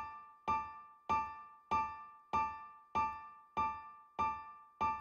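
Piano loop from a Steinberg urban loop library previewing: the same two-note chord struck on every beat, evenly about every 0.6 seconds, each hit ringing out and fading before the next.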